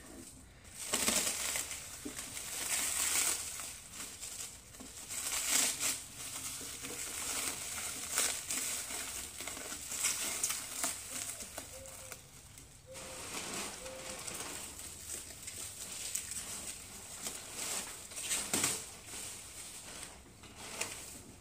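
Plastic stretch wrap crinkling and rustling as it is pulled and peeled off by hand, coming and going unevenly.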